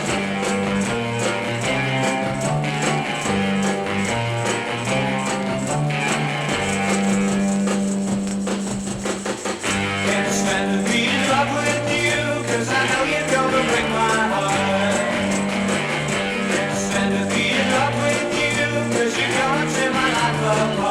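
Music: a mid-1960s rock-and-roll recording with guitar and a bass line moving in steps.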